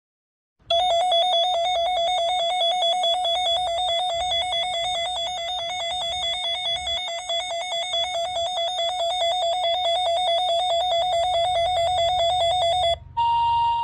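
Weather alert radio sounding its electronic alarm for an incoming warning: a rapidly warbling tone lasting about twelve seconds, starting just under a second in. Near the end it gives way to a steady single tone, the weather radio warning alert tone that comes before a spoken warning.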